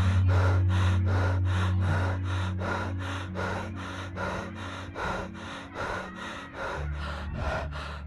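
Fast rhythmic panting, about three breaths a second, like a runner breathing hard, over low held tones that shift pitch now and then. The whole sound slowly fades.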